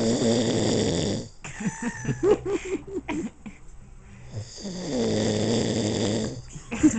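A man snoring heavily while asleep: two long snores about four seconds apart, with short broken sounds between them.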